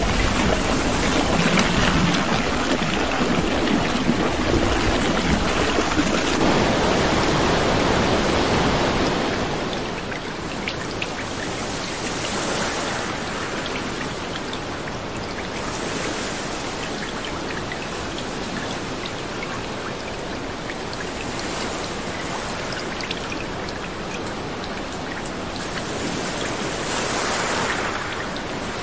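Steady rushing noise of floodwater, louder for about the first nine seconds and then a little quieter and even.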